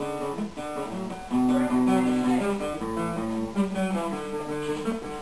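Acoustic guitar being played: a run of plucked notes and chords, each held for a moment before the next.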